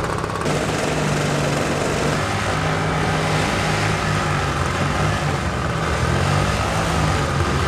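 Propeller engines of a giant 1:6-scale RC Lockheed Super Constellation running steadily on the ground, a small-engine drone with a few steady tones.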